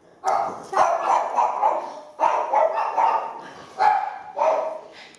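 A dog barking in four bouts of quick yaps, each bout about a second long.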